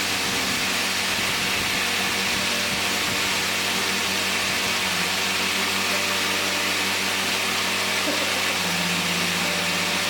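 Caldwell CUT 70 GC MAX plasma cutter with built-in air compressor running: a steady hiss of air over a low motor hum.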